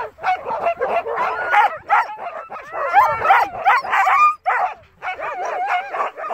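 A team of harnessed husky sled dogs yelping, barking and howling together in a dense, overlapping chorus, the excited noise of dogs eager to start running. The calls ease for a moment about four and a half seconds in, then pick up again.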